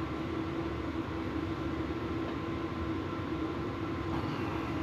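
A steady machine hum with one constant tone and a noisy rumble beneath, unchanging throughout.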